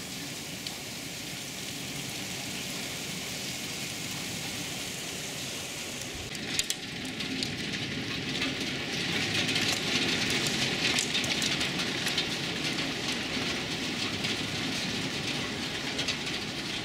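Heavy rain falling steadily. About six seconds in, after a sharp knock, hail takes over: a louder, dense clatter of many rapid ticks from hailstones striking hard surfaces.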